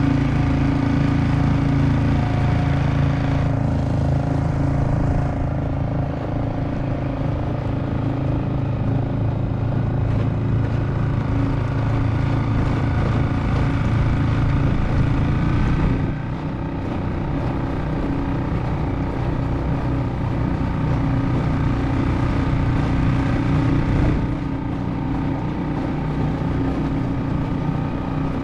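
Yamaha 2.5 hp four-stroke single-cylinder outboard motor running steadily in forward gear, pushing a small rowboat along, with the wash of water behind it.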